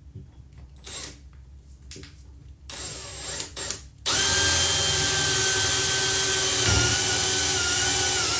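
Power drill boring a hole through a cabinet drawer front: a few short clicks and brief bursts, then a steady high-pitched whine for about five seconds that cuts off suddenly.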